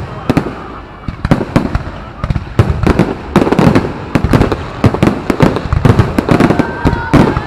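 Aerial fireworks shells bursting overhead: many sharp bangs and crackles in quick, overlapping succession, thickening about a third of the way in.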